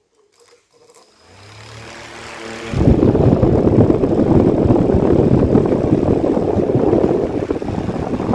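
Small DC motor with a red plastic fan blade, powered by a homemade 3-cell lithium battery pack, spins up with a faint hum. About three seconds in, the fan is pointed at the microphone and its air blast buffets it with a loud, steady wind rumble.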